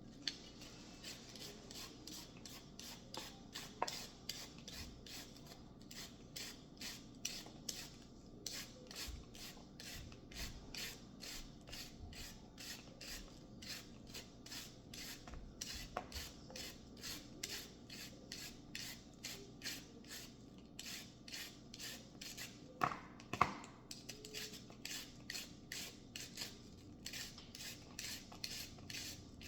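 Steady rhythmic rasping strokes, about three a second, of food being scraped or shredded by hand, with a few brief pauses and a couple of louder knocks near the end.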